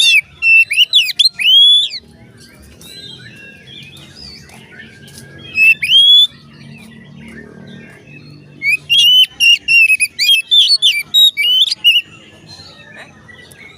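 Oriental magpie-robin (kacer) singing loud whistled phrases of sliding, rising and falling notes. There are three bursts of song: one at the start, a short one around six seconds, and a longer rapid run from about nine to twelve seconds.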